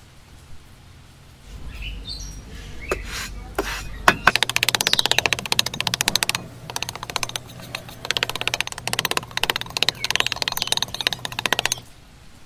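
A small metal trowel scraping and smoothing sand, a dense gritty rasp that runs in strokes and stops about a second before the end.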